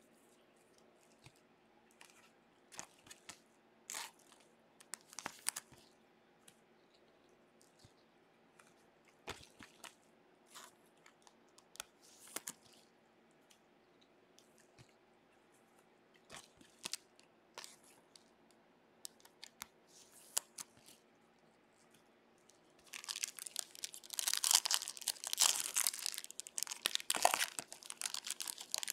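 Foil wrapper of a baseball card pack handled in gloved hands: scattered light crackles at first, then denser, louder crinkling and tearing near the end as the pack is opened.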